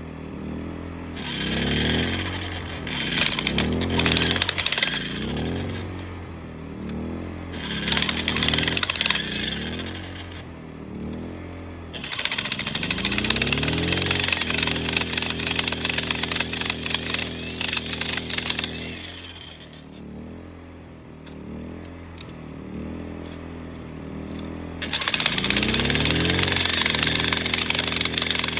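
Vevor electric jackhammer breaking rock in four runs of rapid hammering, each several seconds long, its motor pitch climbing as each run starts and humming in the pauses between.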